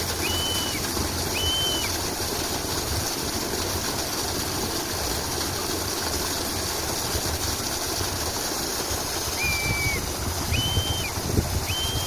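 Steady rush of running water with a bird whistling short, level notes, three near the start and three more near the end. Low gusts of wind on the microphone near the end.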